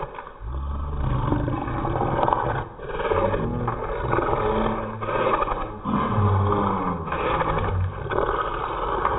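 French bulldog making a string of low-pitched, rough vocal sounds, each about a second long, with heavy breathing between them, while excitedly begging for food.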